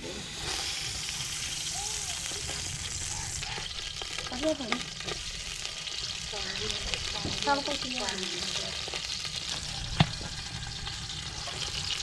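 Sliced onions frying in hot oil in a large aluminium cooking pot over a wood fire: a steady sizzle that starts about half a second in. A single sharp click sounds about ten seconds in.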